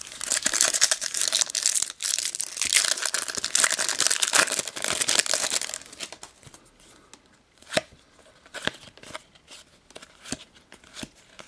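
A Panini football trading-card packet torn open and its wrapper crinkled for about six seconds, then quieter clicks and flicks as the cards are slid apart and sorted in the hands.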